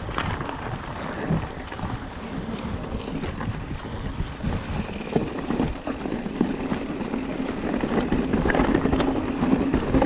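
Mountain bike being ridden on a trail: wind rushing over the microphone, tyres rolling, and short clicks and knocks of the bike rattling over bumps. A steady low hum builds over the second half.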